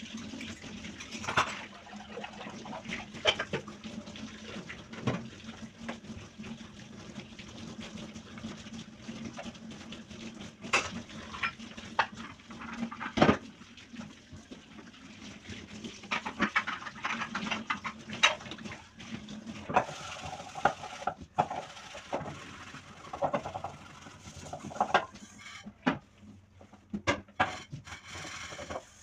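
Dishes being washed by hand at a sink: repeated clinks and knocks of dishes against each other and the sink over scrubbing and water noise, with a steady low hum that stops about two-thirds of the way through.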